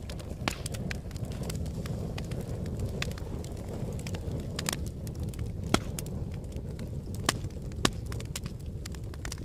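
Wood fire burning in a fireplace: a steady low rumble of flames with frequent, irregular crackles and pops, a few sharper pops in the second half.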